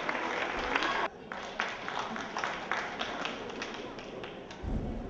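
Audience applause that cuts off abruptly about a second in, followed by scattered single claps and taps over faint crowd voices, with a low thud near the end.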